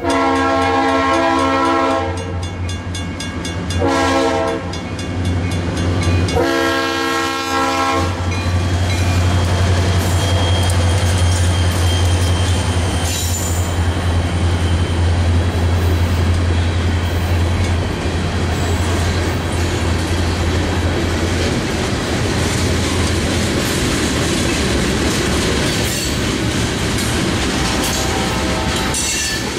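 Freight train's diesel locomotive horn sounding for the grade crossing: a long blast, a short one about four seconds in, and a final long one ending about eight seconds in. The locomotives then drone past, followed by hopper cars rolling over the crossing with a steady clickety-clack of wheels on the rail joints.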